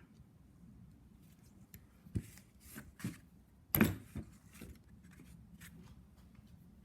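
A handful of short clicks and knocks, like small metal or plastic parts and tools being handled during repair work. The loudest knock comes a little under four seconds in.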